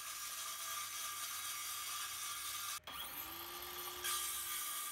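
Ryobi circular saw cutting through a melamine sheet: a steady hiss of blade and motor. It breaks off briefly about three seconds in, then the motor's hum rises in pitch and holds steady.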